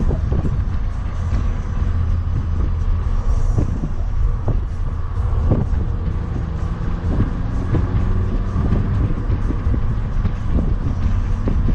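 Inside the cabin of a Mini Cooper S with its supercharged 1.6-litre four-cylinder, cruising at a steady speed: engine and road rumble, with a few brief knocks.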